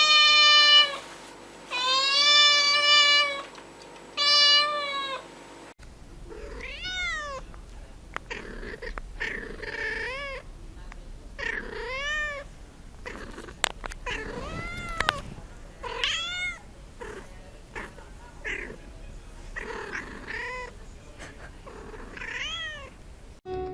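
Domestic cat meowing: three long, loud meows in the first five seconds. After a cut, a string of shorter, quieter meows follows, each rising and falling in pitch, with a couple of sharp clicks in the middle.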